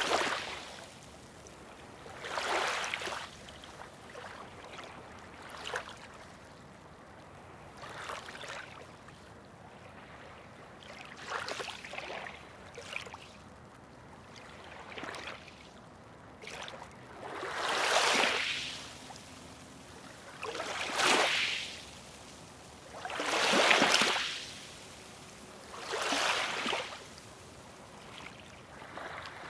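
Small sea waves washing onto the shore, each a hissing surge that swells and fades, arriving every two to three seconds and coming in stronger in the second half.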